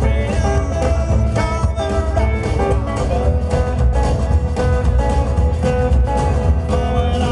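Live rockabilly band playing without singing: a red hollow-body electric guitar and an acoustic guitar over an upright double bass and drums, with a steady driving beat.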